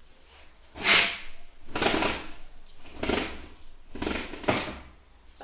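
A window sash being handled, pushed open and moved back, giving about five short rubbing strokes roughly a second apart.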